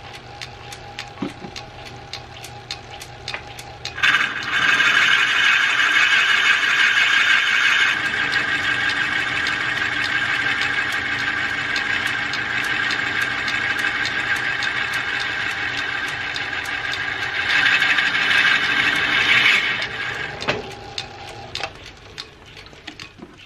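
Metal lathe running with a steady hum and a fast, regular ticking. About four seconds in, the cutting tool bites into the spinning white oak: a loud, even shaving noise that lasts about sixteen seconds and is loudest at its start and again near its end. It then stops, and the lathe's sound fades near the end.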